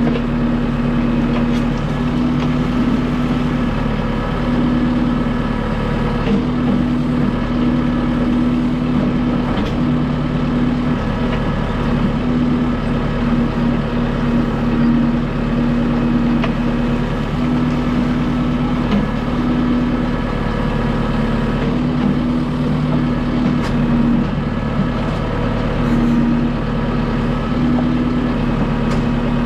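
Kubota M6060 tractor's four-cylinder diesel engine running steadily at working speed while powering a backhoe. One steady hum in its sound drops out briefly every couple of seconds.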